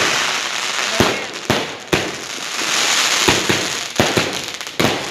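New Year's fireworks and firecrackers going off without pause: a dense crackle with many sharp bangs, several of them standing out above the rest.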